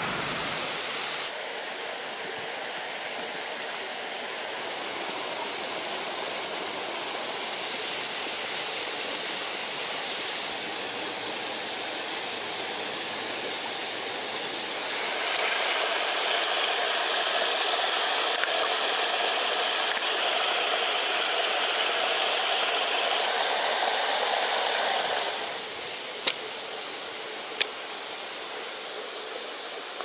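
Steady rush of a stream running over rocks. It grows louder about halfway through for some ten seconds, then drops back. Two sharp clicks come near the end.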